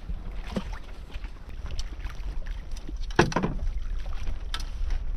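Wind buffeting the microphone over water lapping around a small outrigger boat, with scattered light knocks and one short, louder sound about three seconds in.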